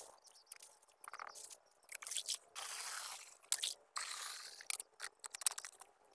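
Water poured from a bucket into a plastic backpack sprayer tank, two short pours heard as a hiss, topping up the herbicide mix. Crinkling and crunching of a plastic bag are heard around them.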